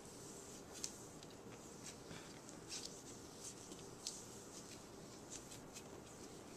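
Faint rubbing of a cloth wiped across a MacBook Pro's aluminium lid, with a few light taps and clicks scattered through.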